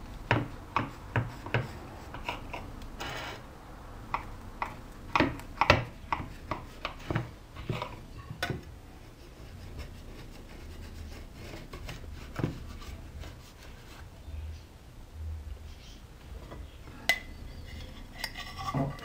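A large kitchen knife cutting through a chilled cheesecake and its cookie crust, the blade clicking and scraping against the glass pie dish in a string of sharp taps that grow sparser after about halfway. The slice is then levered out and set onto a ceramic plate.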